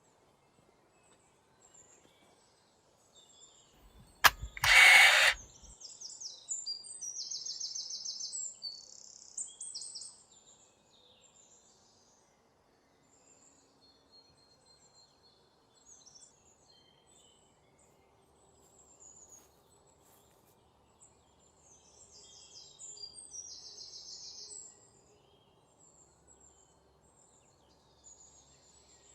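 Birds chirping over a faint outdoor background, in clusters of high calls, with a sharp click and a brief loud burst of noise about four seconds in.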